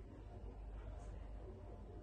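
Faint nasal sniffing at a wrist sprayed with body mist, over a low steady room hum.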